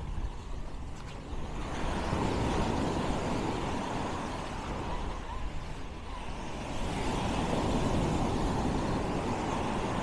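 Small waves breaking and washing up a sandy beach, two surges of surf, the first about two seconds in and the second about seven seconds in, over a steady low rumble.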